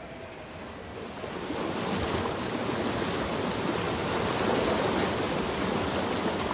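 River water rushing over a shallow bed, a steady noise that swells up over the first two seconds and then holds even.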